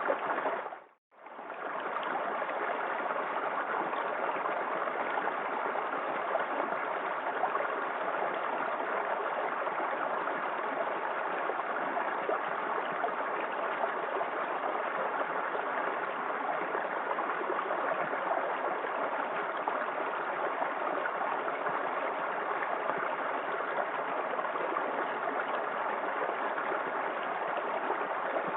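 Small waterfall in a forest creek: steady rushing, splashing water. The sound briefly drops out about a second in and fades back in.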